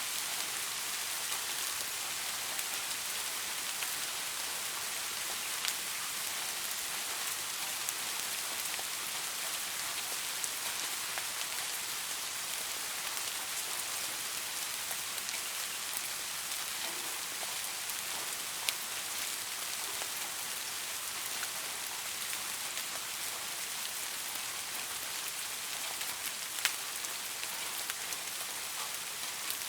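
Steady rainfall on leaves, an even hiss with occasional sharper drips standing out, a louder one about 19 s in and another near the end.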